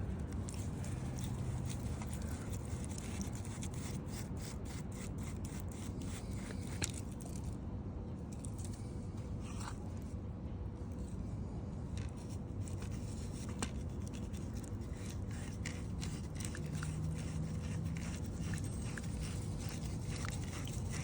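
Dirt and roots being scraped and dug out by hand around a buried sprinkler head, with many short scrapes and crunches.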